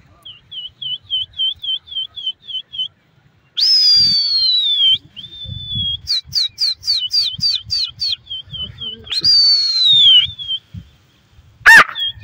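A pigeon flyer whistling to a circling flock of pigeons. There are two long, loud whistles falling in pitch, at about four and nine seconds in, and a quick run of rising chirps around six to seven seconds in. Softer short whistled notes repeat about four a second in between, and a sharp, loud snap comes near the end.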